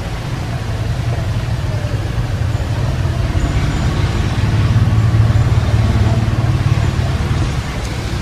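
A steady low rumble that swells about halfway through and eases off near the end.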